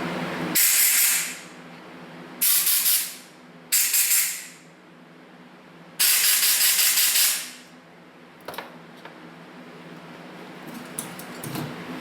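Shop air hose blow gun giving four blasts of compressed air, the last one the longest, blowing out the passages of a Zenith carburetor body. A few light clicks follow near the end.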